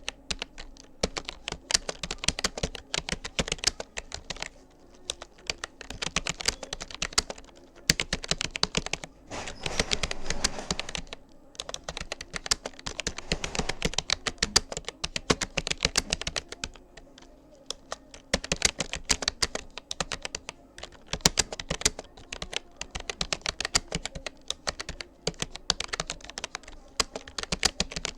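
Rapoo computer keyboard being typed on at a steady touch-typing pace, with rapid key clicks in runs broken by a few short pauses.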